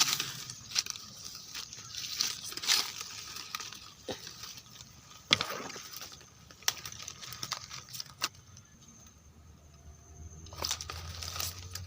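Dry leaf litter and twigs rustling and crackling underfoot and under hand, with scattered sharp snaps, the loudest about five seconds in. The sound quietens for a few seconds near the end.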